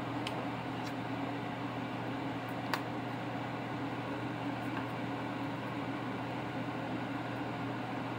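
Steady hum and whoosh of a kitchen fan, with a few light clicks and taps from the knife and butter, the sharpest about three seconds in.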